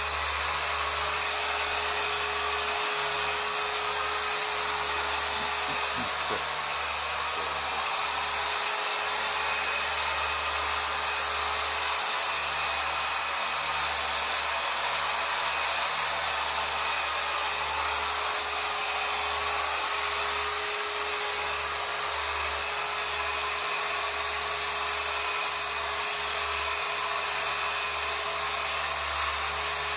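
Electric cleaning machine working over a mattress, its motor running steadily with a constant hum and a high whine.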